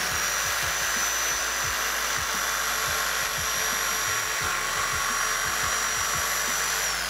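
DeWalt jigsaw crosscutting a 1x3 board: a steady high motor whine over the sound of the blade sawing through the wood, with the motor spinning down near the end as the cut finishes.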